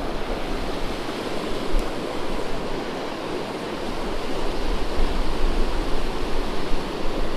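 Rushing water of a mountain trout stream tumbling over rocks: a steady, even rush with no breaks.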